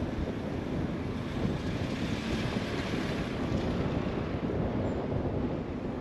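Car driving on the road: steady tyre and wind noise, with a brief brighter swell around the middle.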